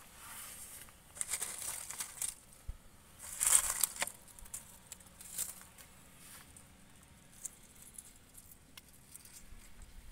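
Short bursts of dry rustling and crinkling, the loudest about three and a half seconds in, followed by a few faint clicks.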